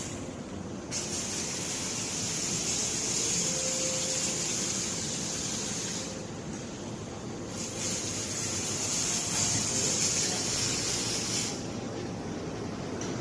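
MIG welding robot's arc hissing in runs of a few seconds, cutting out briefly about six seconds in and again near the end, over steady workshop machinery noise.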